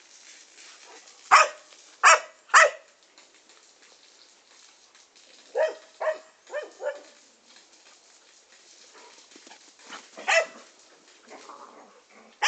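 Dog barking in short bursts: three loud barks in the first three seconds, four quicker, softer barks around the middle, and one more loud bark near the end.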